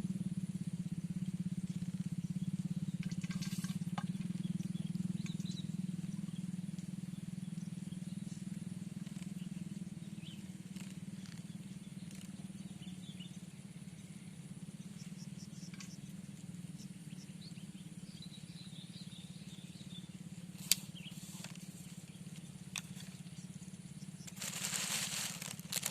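A motor's low, steady drone that slowly fades over the first half. It is joined by faint high chirps, a single sharp click near the end, and a brief rustling burst just after it.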